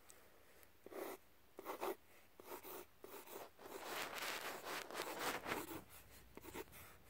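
Pencil scratching on paper in quick sketching strokes: a few separate strokes about a second apart, then a run of rapid back-and-forth strokes, then a few short ones near the end.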